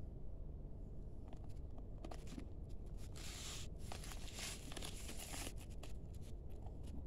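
Thin white protective wrapping crinkling and rustling as hands pull it off a faux-leather bag's strap, in scattered crackles that turn into a continuous rustle from about three seconds in to about five and a half.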